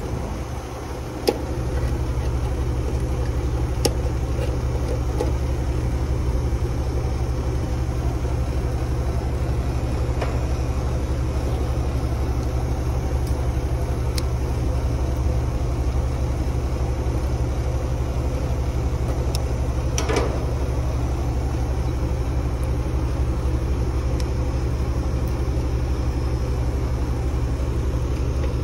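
2 CFM cordless vacuum pump running steadily with a low hum, pulling a vacuum on a newly installed AC condenser's refrigerant lines; it comes up to full speed about a second in. A few light clicks and taps of hand work over it.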